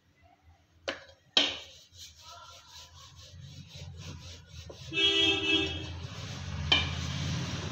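Two sharp knocks about a second in, then a low rumble that grows louder. A horn honks for about a second midway, and another sharp knock comes near the end.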